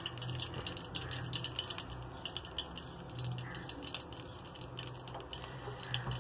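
Cooking oil heating in a metal pan, giving faint, irregular crackling ticks over a low, intermittent hum.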